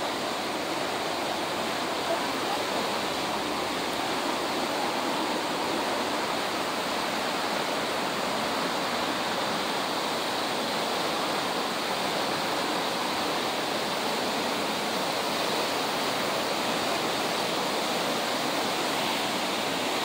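Steady, even rush of Horsetail Falls' falling water.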